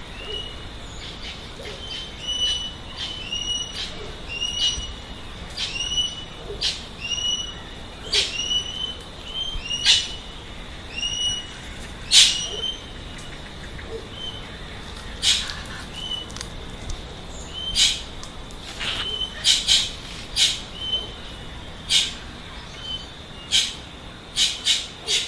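Birds calling: a short whistled note repeated about once or twice a second, mixed with sharp, very short calls, over a faint steady high whine.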